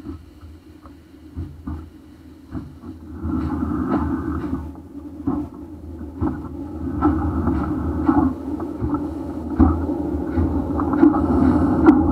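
Soviet L-class steam locomotive rolling toward the camera along the track, a low rumble with irregular knocks and clanks that grows steadily louder as it closes in.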